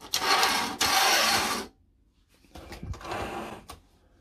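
Handling noise from small model parts: two bursts of scraping, rattling noise, the first about one and a half seconds long and louder than the second.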